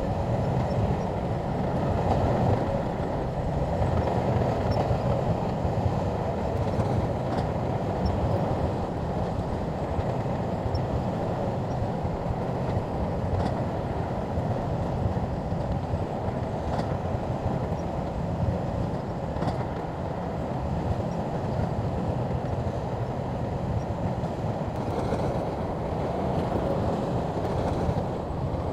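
SHANTUI crawler bulldozer running steadily at work: a continuous diesel rumble with the clatter of its tracks.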